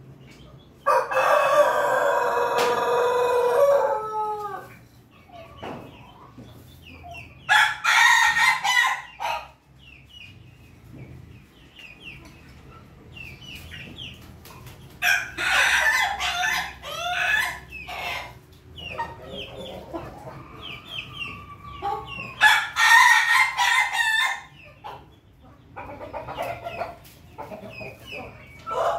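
Roosters crowing four times, a few seconds apart, the first crow the longest with a falling tail; the birds are crossbreeds of pelung, ketawa and bangkok chickens. Softer clucking and short calls from the birds between the crows.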